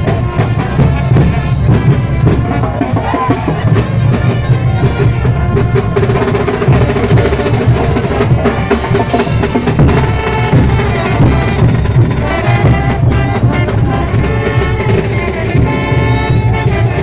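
Live marching brass band playing loudly: sousaphones, trumpets and trombones over a pounding bass drum and crashing hand cymbals.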